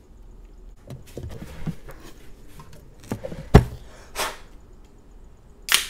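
A beer can being handled and drunk from: scattered clicks and taps, a sharp knock a little past halfway, and a short loud breathy burst near the end.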